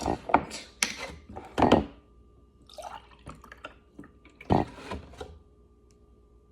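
A few sharp knocks from a milk container and glass being handled, then irregular liquid sounds of milk sloshing and pouring, ending about five seconds in.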